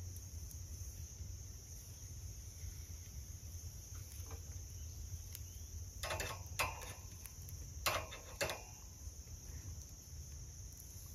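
Metal tongs clicking and clanking against the grate of a small charcoal Weber Go-Anywhere grill, four sharp strikes over about two and a half seconds midway through, as hot dogs are turned. A steady insect chirring runs behind.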